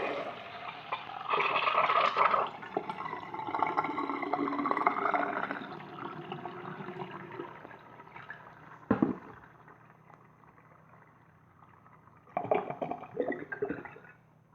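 A clay siphon-jet toilet flushing plain water: a loud rush of water through the bowl that gurgles and fades away over about seven seconds. A single knock comes about nine seconds in, and another short burst of water sound near the end.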